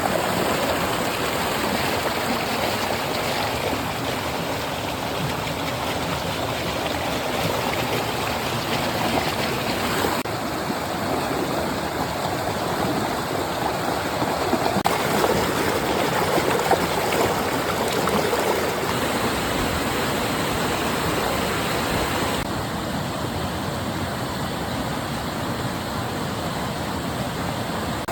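Flowing stream water running steadily, its texture shifting slightly a few times.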